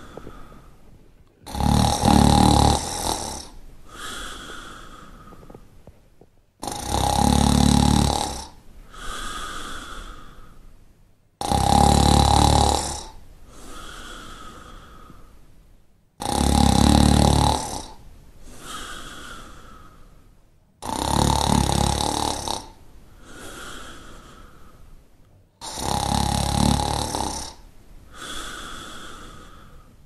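Shar Pei snoring in its sleep: a loud snore about every five seconds, six in all, each followed by a softer breath.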